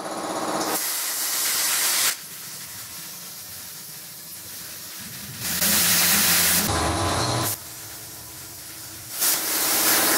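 AuroraPRO AIRHOLD 40 air plasma cutter cutting a steel pipe: three bursts of loud hissing, each lasting one to two seconds, with a quieter hiss between them.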